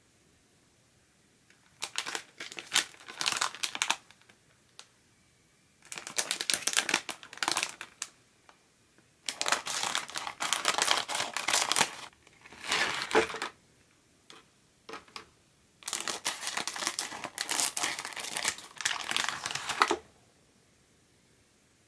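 Plastic candy-kit packets crinkling as they are handled and opened, in four bursts of a few seconds each with quiet between.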